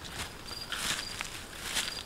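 Footsteps and rustling in dry leaf litter and conifer branches, in three crackly bursts. Underneath, an insect chirps in short, high, repeated notes.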